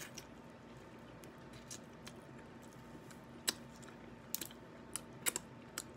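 Cooked crab being eaten by hand: a handful of small sharp clicks and cracks of shell being bitten and pulled apart, with quiet chewing, the clicks coming more often in the second half.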